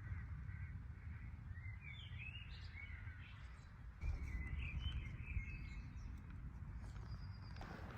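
Small birds chirping in two bursts of short up-and-down calls, over a steady low rumble of outdoor noise.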